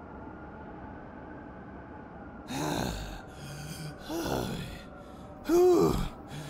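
A low steady rumble, then a man gasping and groaning in exhaustion three times, each a drawn-out breath with a sliding pitch, the last the loudest.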